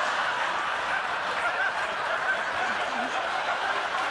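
Studio audience laughing steadily, a sustained wash of many voices.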